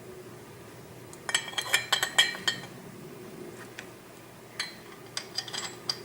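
Metal parts of a LEM No. 8 meat grinder's head clinking and clattering against each other as they are handled and fitted together: a quick run of clinks about a second in, then scattered single clicks.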